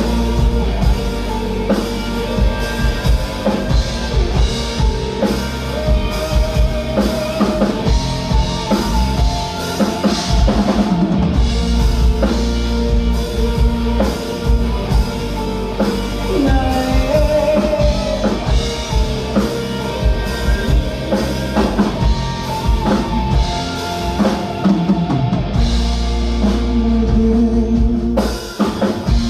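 Live band playing a rock-style song led by a full drum kit, with a short break in the playing just before the end.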